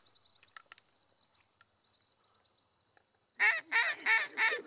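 Waterfowl call blown by a hunter: a run of loud, evenly spaced calling notes, about three a second, starting about three and a half seconds in, aimed at a flock of incoming ducks. Under it a steady high buzz of insects.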